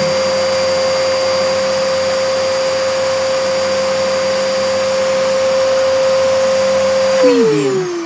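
Vacuum cleaner running idle, with no suction work: a steady high motor whine over rushing air. About seven seconds in it is switched off, and the motor winds down with its whine falling in pitch.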